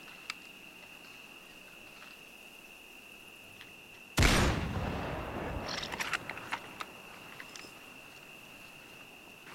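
A single sniper rifle shot about four seconds in, with a low rumbling tail lasting about a second and a half, followed by a few sharp clicks. A steady high insect drone runs underneath.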